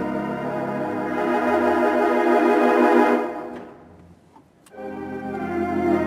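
Barton theatre pipe organ playing sustained chords. A held chord grows louder, is released just after three seconds in and dies away, and a new chord sounds from nearly five seconds in.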